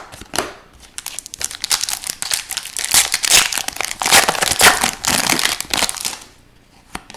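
Foil wrapper of an Upper Deck hockey card pack crinkling and tearing as it is opened. The dense crackling runs for about five seconds and dies down about six seconds in.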